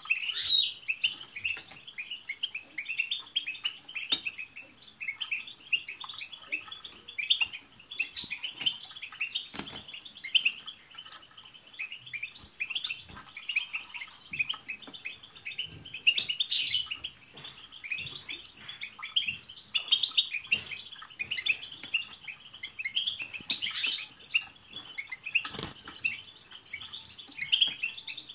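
Several European goldfinches singing together: a dense, unbroken twittering of quick chirps, with a few high, thin notes scattered through it.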